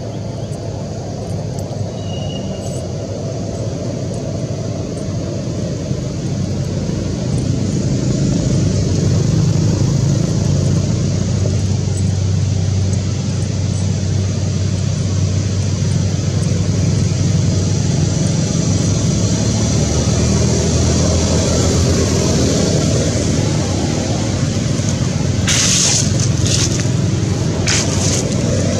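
Steady low engine-like rumble with a hiss, building over the first several seconds and then holding. A few sharp clicks come near the end.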